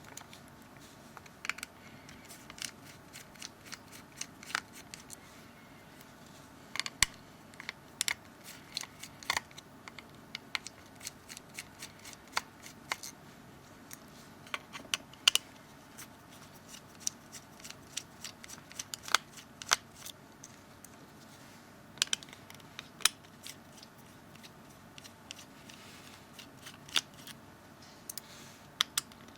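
Irregular small clicks and light taps of a T5 Torx screwdriver working the tiny screws out of the back of a Nokia 700 phone, spaced out over several seconds at a time, with the screws and tool handled between turns.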